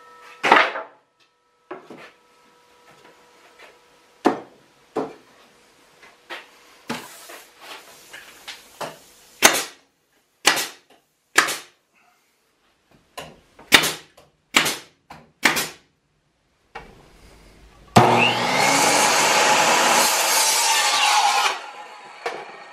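A string of sharp wooden knocks as pallet boards are handled and fitted to the coop's frame, then a circular saw spins up and cuts a board for about three and a half seconds.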